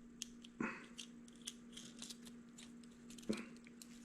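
Faint small metal clicks and light taps of hardware being handled: a nut being threaded by hand onto an M6 bolt through a steel corner brace with washers, with two slightly stronger taps, about half a second in and about three seconds in. A steady low hum runs underneath.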